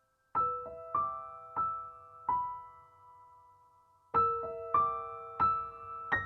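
Soft, slow solo piano music: single notes and chords struck a few at a time, each left to ring and fade, with a short pause before the next group about four seconds in.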